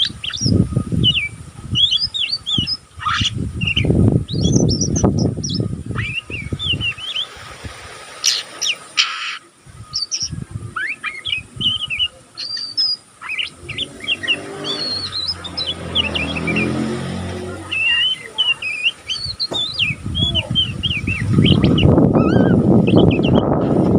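Young Oriental magpie-robin (kacer) chattering in its ngeriwik style: a steady run of short, quick chirps and twitters with hardly a break, still learning its song. Low rumbling noise comes and goes under it and is loudest near the end, with an engine hum passing about midway.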